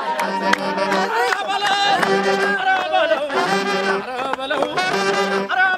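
Ethiopian wedding dance music: a repeating pattern of short held low notes under a wavering, ornamented melody line.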